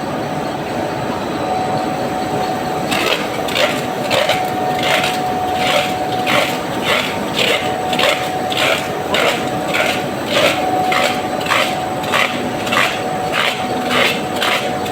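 Regular rasping strokes, about two a second, starting about three seconds in, over a steady hum.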